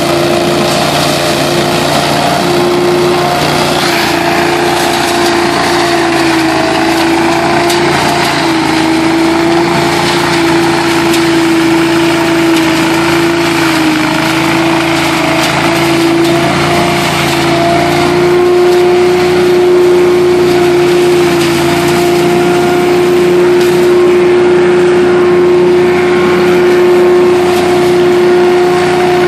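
Billy Goat DL1801VE debris loader running at full speed, its 18 hp engine and suction fan giving a steady whine over a rush of air as leaves are drawn up the hose. The whine wavers a little in pitch at first, then holds steady and grows slightly louder in the second half.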